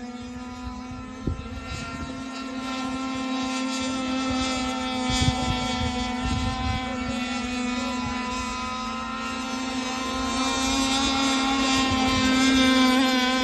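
Radio-controlled racing boat running at speed on the water. Its motor holds a steady, high buzzing note that swells louder near the end as the boat comes closer. There are a few low rumbles and thumps along the way.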